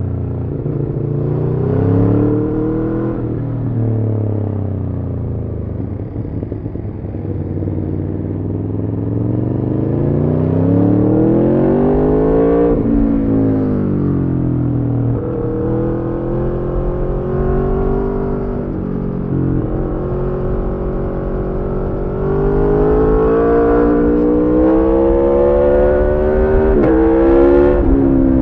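Aprilia Tuono V4's V4 engine running through a decatted Arrow slip-on exhaust while riding. Its pitch climbs under acceleration and drops sharply at each gear change, several times over. It pulls highest in the later part.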